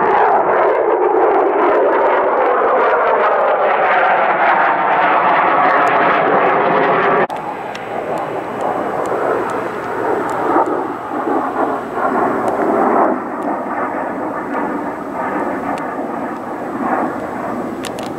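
F-16 fighter jet flying past, its engine noise loud with a falling sweep in pitch as it goes by. About seven seconds in, the sound cuts off abruptly to a quieter, wavering jet rumble.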